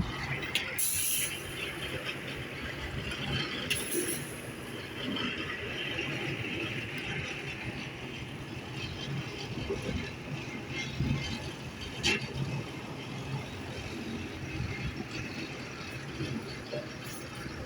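Construction site noise: machinery running with a steady rumble, with a few sharp knocks.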